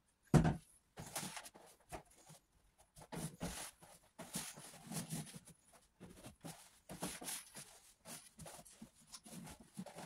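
A cloth rubbing and wiping over the plastic housing and louvred grilles of a mobile air conditioner in irregular strokes, with one sharp knock just after the start.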